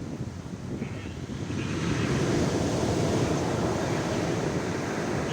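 Sea surf: waves breaking and washing on the beach, swelling louder about two seconds in, with wind buffeting the microphone.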